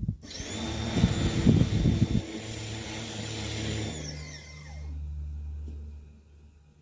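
Pressure washer running and spraying, the jet hitting the screen door's mesh and grille, louder and rougher for about a second early on. About four seconds in the spray stops and the machine's whine falls in pitch as it winds down, leaving a low hum that fades.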